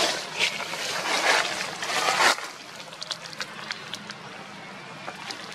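Dry fallen leaves rustling and crunching for about two seconds, then a quieter stretch with a few light clicks.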